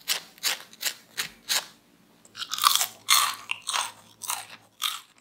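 Crispy seasoned french fries being bitten and chewed: a run of sharp crunches, about three a second at first, then denser and louder from about two seconds in.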